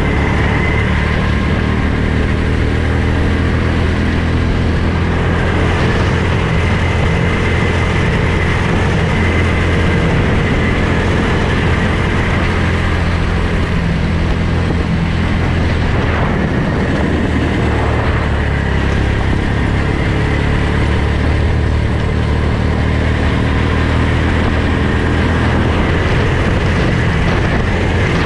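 Go-kart engine running steadily at speed, heard from the driver's seat.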